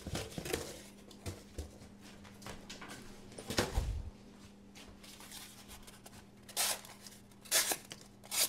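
D2 steel fixed-blade knife slicing through cardboard: three short, sharp cutting strokes in the last couple of seconds, with a louder thump of the box about halfway through.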